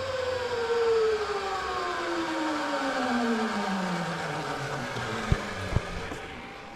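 Zipline trolley's pulley wheels running along the steel cable: a whine over a rushing noise, its pitch falling steadily as the trolley slows. Two light knocks come near the end.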